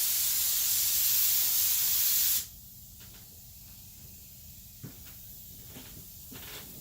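Air paint spray gun spraying clear coat, a loud steady hiss that cuts off sharply about two and a half seconds in as the trigger is released. A few faint knocks and clicks follow.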